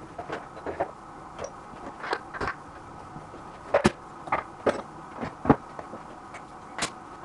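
Irregular metallic clicks and knocks of socket-wrench extensions being handled and fitted onto a bicycle crank bolt, about a dozen in all, the sharpest near the middle and near the end.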